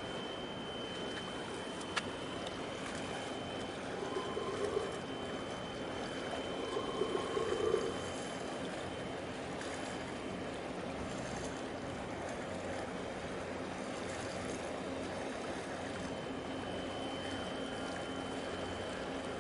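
Steady wash of water as a large container ship passes close by, with a faint steady high tone throughout. There are two brief, slightly louder sounds about four and seven seconds in.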